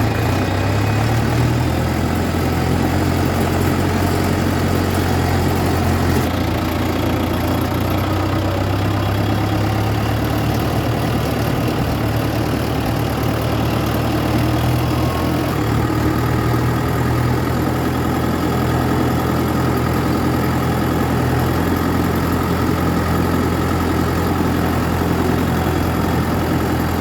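Heavy diesel engine running steadily at idle, a low even drone with slight shifts in pitch.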